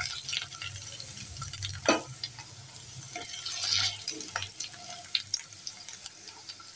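Fried potato pieces being scooped out of hot mustard oil in a nonstick frying pan and dropped into a glass bowl: scattered clicks and knocks, the sharpest about two seconds in, over a faint sizzle of oil.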